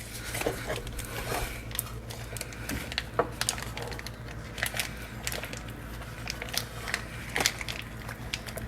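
Scattered light clicks and taps of a casserole dish and kitchen utensils being handled while the dish is greased, with a steady low hum underneath.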